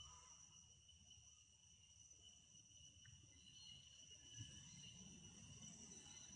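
Faint, steady chorus of insects, an unbroken high trill, over a low rumble, with one soft thump a little after the middle.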